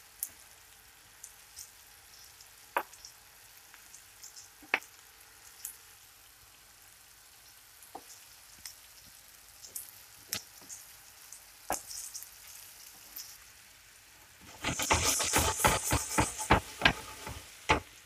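Flour-coated meatballs shallow-frying in oil in a frying pan, sizzling lightly with scattered sharp clicks and spits as a metal spoon turns them. About fifteen seconds in, the frying turns loud and crackly for about three seconds.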